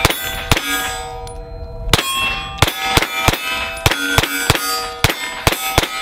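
Smith & Wesson M&P FPC 9mm carbine fired about a dozen times at an uneven pace. Each shot is followed by the ringing clang of a steel target being hit. There is a pause of over a second near the start, then quicker shots.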